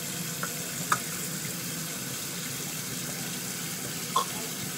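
Bathroom sink faucet running in a steady hiss, with a couple of small clicks about a second in and near the end.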